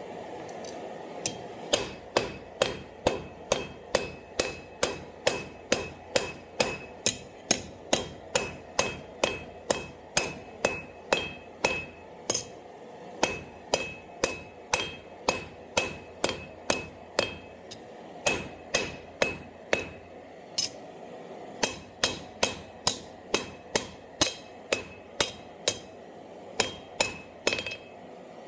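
Hand hammer striking a hot half-inch square steel bar on an anvil, about two blows a second with two short pauses. Each blow rings briefly. The blows are drawing out and rounding a taper at the bar's end.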